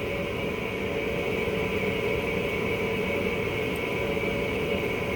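Steady mechanical hum with a few held tones in it, the drone of a running fan, air-conditioning unit or similar machine.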